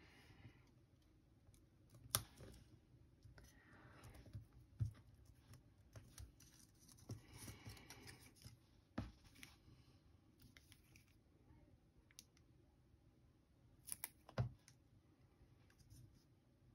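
Faint handling of paper and thin cord on a tabletop: soft rustling of card pennants being threaded, with a few short sharp taps or clicks, one about two seconds in, one about nine seconds in and a double one near the end.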